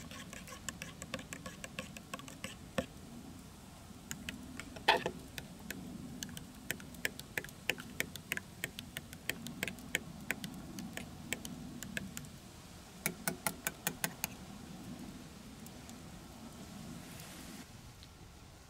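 Metal teaspoons stirring in ceramic mugs, clinking against the sides in quick runs of light ticks. About five seconds in, one harder strike rings out briefly.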